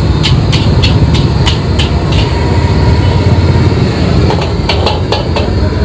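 Metal spatula clacking and scraping against a wok as fried rice is stir-fried, in quick runs of strikes near the start and again about four seconds in, over the steady rumble of a gas wok burner.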